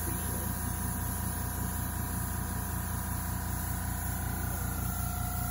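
A small handheld electric device's motor running steadily, a constant whine over a low hum.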